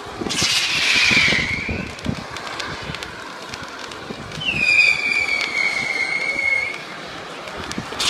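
Fireworks going off: scattered sharp bangs and crackles, with a loud shrill whistling burst just after the start and a long, slightly falling shrill whistle in the middle.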